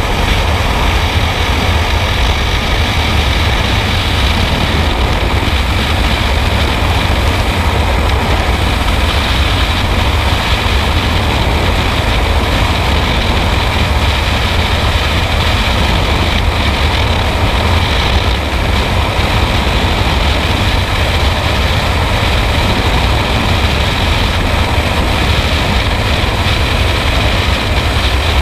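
Rushing wind of a skydiving freefall buffeting the microphone of a body-worn camera. It is a loud, steady roar with a deep, low rumble.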